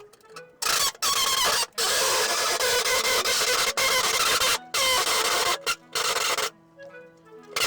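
Harsh, noisy metalwork on the Jimny's rear body sheet steel, cutting or welding, in stop-start bursts. Each burst lasts from a second to a few seconds, with short breaks between them and a longer lull near the end.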